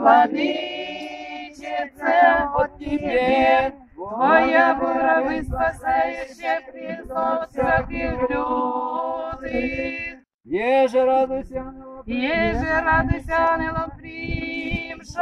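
A small group of women and men singing a church chant a cappella, in long phrases with two short breaks.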